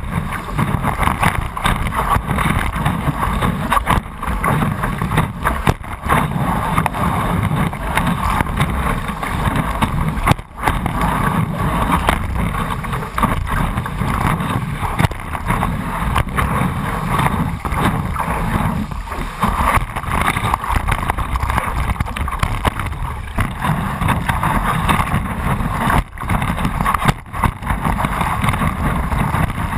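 Steady rush of wind and breaking wave water over a board-mounted action camera as a stand-up paddleboard rides a wave, dense and muffled, with a few sudden brief dropouts.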